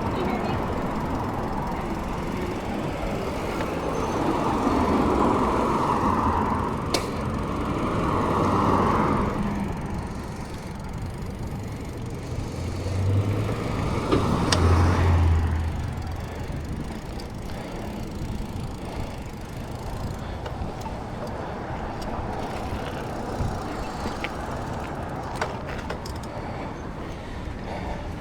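Continuous rumbling noise of a bicycle being ridden with road traffic around, swelling twice, with a couple of sharp clicks.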